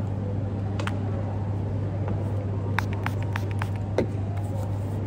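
A plastic pump-spray bottle of hand sanitizer being handled and pumped over an open palm: several light clicks around the middle and a louder short knock about four seconds in, over a steady low hum.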